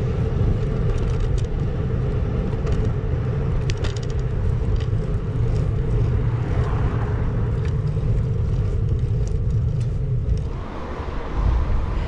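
Steady wind rush and road rumble on a handlebar-mounted action camera as a bicycle rolls along a street, with scattered light clicks; the level dips briefly near the end.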